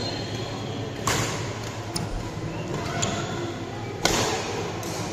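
Badminton rackets striking a shuttlecock: two sharp smacks about three seconds apart, with fainter taps between them, over a steady background hum.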